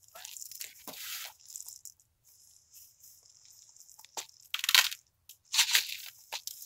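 Dry fallen leaves and dead sticks crunching and rustling as a long dead branch is handled and dragged through the leaf litter. The sound comes in several short bursts, the loudest a little under two-thirds of the way in.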